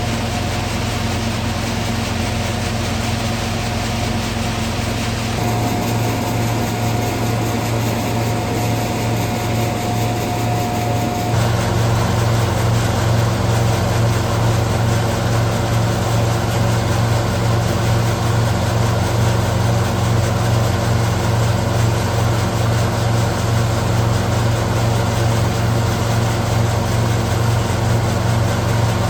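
An engine-driven hazelnut threshing machine (patoz) runs with a steady low drone, husking hazelnuts. About a dozen seconds in, its sound changes and grows louder.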